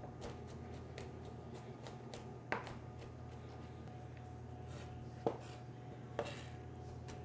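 Chef's knife mincing garlic on a cutting board: quick light taps of the blade against the board, with three louder knocks about two and a half, five and six seconds in.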